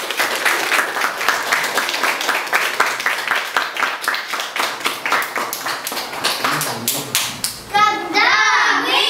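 Hands clapping in a quick, even rhythm, then about eight seconds in a group of children starts singing together.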